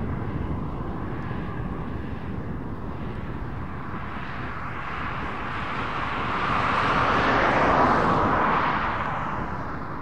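Tractor and Grimme potato harvester working in the field: a steady engine rumble, with a rushing noise that swells about seven to eight seconds in and then fades.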